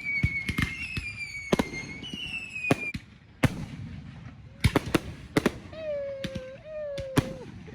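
Aerial fireworks going off: sharp bangs and cracks at irregular intervals, with a high whistling firework tone sliding slowly down through the first three seconds.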